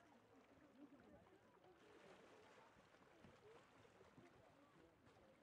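Near silence, with faint distant voices.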